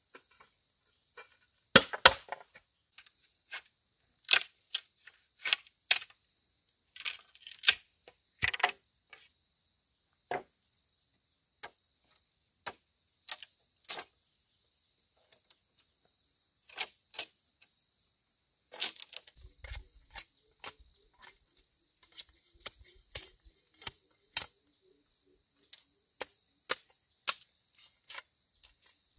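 Sharp, irregular clicks and knocks, roughly one a second and some of them loud, over a steady high chirring of insects.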